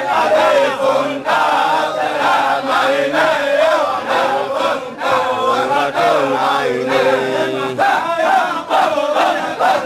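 Men of a Shadhili Sufi circle chanting dhikr together in a steady rhythm, many voices at once. A low held note runs beneath them and drops out about eight seconds in.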